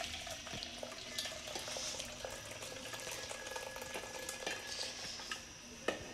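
Hot milky tea poured from a saucepan through a metal tea strainer into a cup: a steady stream of liquid, with a few light clicks.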